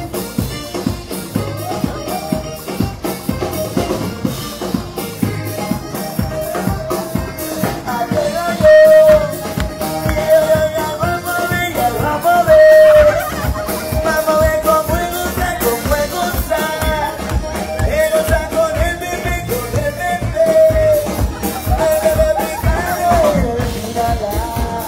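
Live street band playing upbeat music, a drum kit keeping a steady beat under a held melody line from trumpet or voice, with guitar and keyboard. Two brief louder moments come near the middle.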